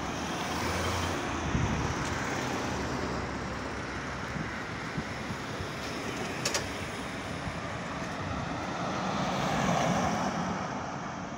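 Street traffic at a city intersection: cars driving past with steady tyre and engine noise, one SUV passing close and swelling in level about nine to ten seconds in. A couple of short sharp clicks about six and a half seconds in.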